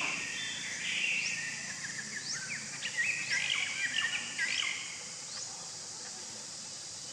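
Small birds chirping in quick, short rising notes, busiest for the first five seconds and then dying away, over a steady high hiss.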